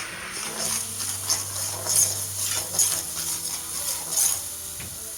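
Garlic-ginger paste and green seasoning sizzling as they fry in a pan, with a spoon stirring and scraping against the pan several times.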